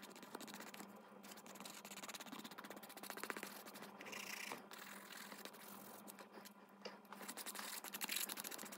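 Rapid, scratchy back-and-forth strokes of a nail file buffing the surface of a plastic nail tip to take off its shine before a base coat.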